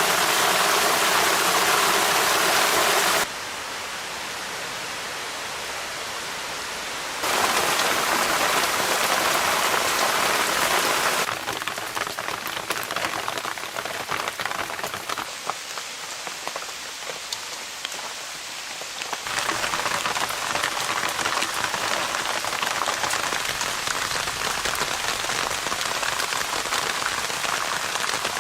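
Heavy rain falling steadily in a dense patter of drops. Its loudness and tone jump abruptly every few seconds where the recording is cut between takes.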